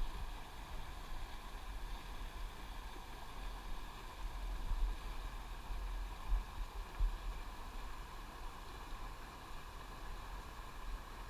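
Steady rush of fast-flowing river water, with uneven low rumbles on the microphone.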